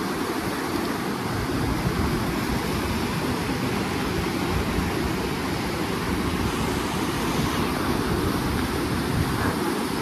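Fast mountain river rushing over a rocky bed in white-water rapids: a steady, loud, full rushing roar.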